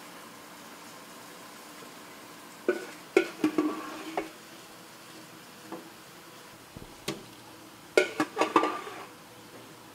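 Metal scoop clanking and scraping against a large stainless steel cooking kettle and a steel hotel pan as red sauce is scooped out, in two clusters of sharp knocks about three and eight seconds in, with a few single knocks between.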